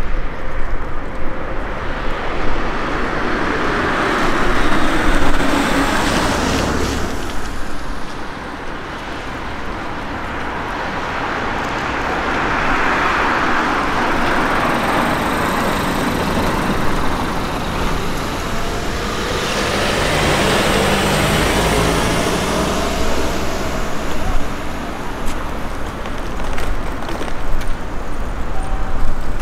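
Road traffic: cars passing by one after another, the tyre and engine noise swelling and fading away about three times.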